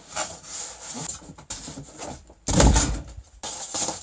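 Packaging being handled and pulled apart: cardboard and packing material rubbing and scraping, with a louder scrape and knock about two and a half seconds in.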